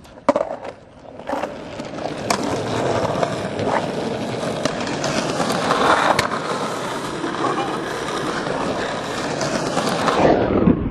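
Skateboard wheels rolling over rough concrete, a steady gritty rumble, with a sharp clack near the start and a few lighter clicks from the board along the way.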